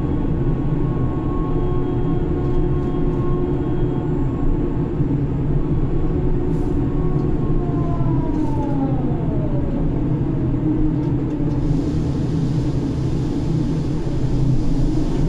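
Ship's grab crane machinery running, heard from inside the operator cabin: a steady low drone under a whine that glides down in pitch about eight seconds in and then holds low.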